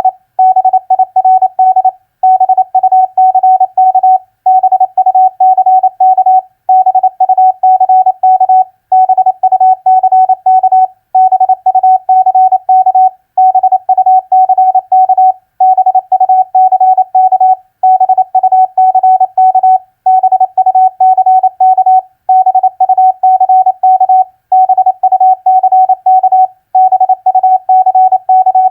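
Morse code at 28 words per minute, sent as a single-pitch keyed tone of rapid dots and dashes. It spells common four-letter words, one word about every two seconds with a short pause between words.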